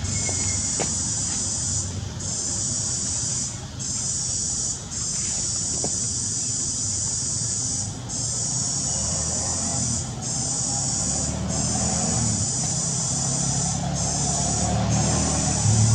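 Loud chorus of insects, a high steady drone that breaks off briefly every second or two. A vehicle engine grows louder underneath near the end.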